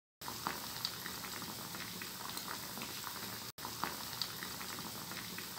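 A rice-and-bread vada deep-frying in hot oil in a pan: a steady sizzle dotted with many small crackles and pops, broken by a brief gap about three and a half seconds in.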